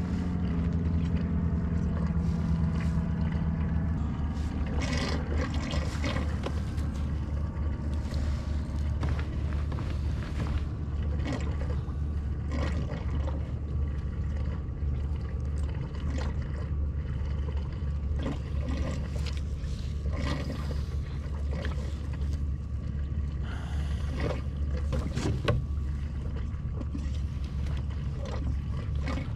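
Hands rigging fishing tackle on a plastic sit-on-top kayak: scattered small clicks and rustles of line, hook and gear over a steady low rumble.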